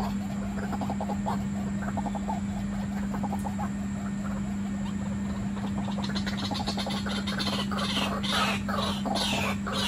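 Waterhens calling: a quick run of low, croaking clucks over a steady low hum, joined about six seconds in by a flurry of higher, falling squeaky calls.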